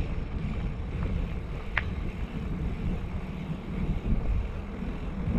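Wind buffeting the microphone as a bicycle rolls along an asphalt road, a steady low rumble, with one short click a little under two seconds in.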